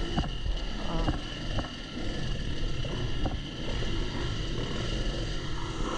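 Dirt bike engine running at low revs while crawling over rocky trail, with a few short knocks as the wheels and suspension hit the rocks.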